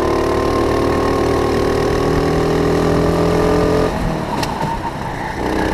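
Go-kart engine under throttle, its pitch climbing slowly for about four seconds, then falling away as the throttle is lifted into a corner, with a sharp click, before it picks up again at lower pitch near the end.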